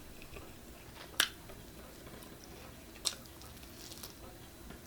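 Faint chewing of pizza, with two short sharp clicks about two seconds apart.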